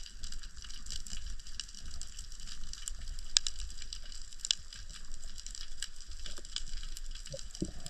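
Underwater reef ambience: a steady crackle of many small irregular clicks over a low rumble of water.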